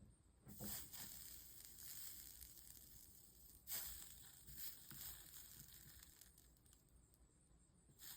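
Faint crackling sizzle of flux under a soldering iron as solder is melted along a stained glass seam, in a few short bursts with a soft hiss between them. The solderer feels the iron is running a little cool.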